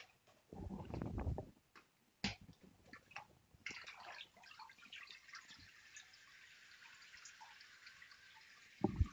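Water sloshing in a plastic vat of paper pulp as a papermaking mold is moved through it, then a steady trickle and drip of water draining through the mold's mesh as the sheet is lifted out. A louder splash or knock comes near the end.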